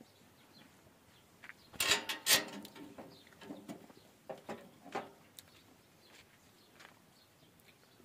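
Knocking and rattling from a big goat shifting on a livestock weighing platform with a metal railing: a cluster of loud knocks about two seconds in, then a few lighter ones a couple of seconds later.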